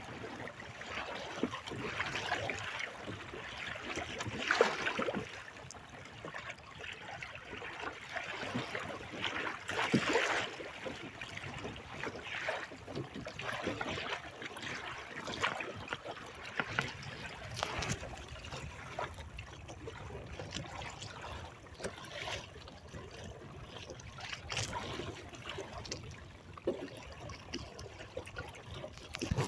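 Water splashing and gurgling along the hull of a sailing kayak with outrigger floats as it moves through small waves, in irregular surges with the loudest splashes about four and a half and ten seconds in.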